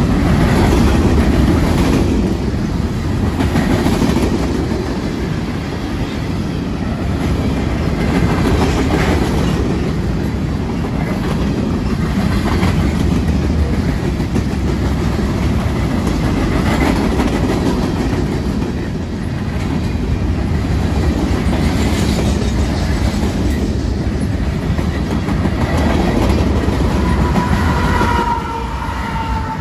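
Freight train rolling past, a steady rumble of rail cars with wheels clicking over rail joints. Near the end, as a locomotive comes by, a high steady tone sets in and slides slightly lower.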